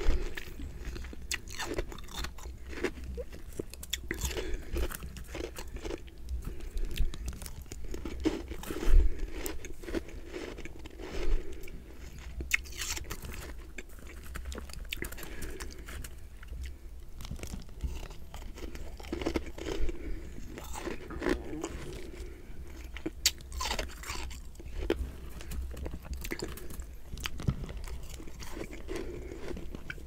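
Chewing mouthfuls of humidifier freezer frost: repeated, irregular crunching as the frost breaks between the teeth, with one louder crunch about nine seconds in.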